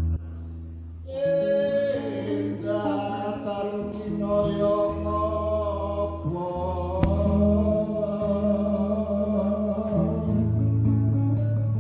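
Music: a voice singing over sustained low instrumental notes, coming in about a second in after a brief quieter moment.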